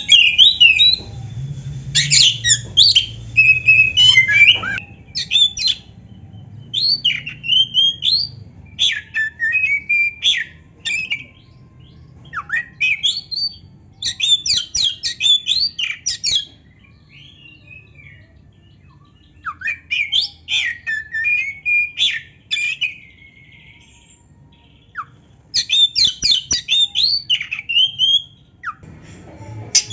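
Black-breasted Oriental magpie-robin singing in loud, rapid phrases of varied whistles, sweeping notes and harsh squawks, broken by a few pauses of two to three seconds.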